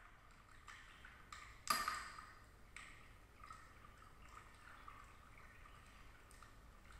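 Quiet room with a few faint light clicks and one sharper, ringing ping about a second and a half in.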